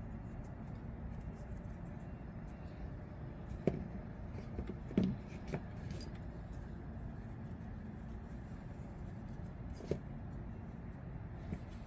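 A few light clicks and knocks of small knife parts being handled and set down, a cluster of them about four to six seconds in and another near ten seconds, over a steady low background hum.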